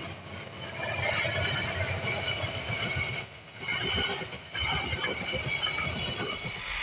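Passenger train coaches rolling past on the track, the wheels clattering along the rails.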